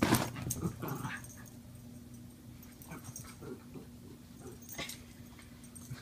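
A Mini Dachshund and a Norfolk Terrier tussling over a chew toy in play, with short dog whines and growls and scuffling, loudest in the first second.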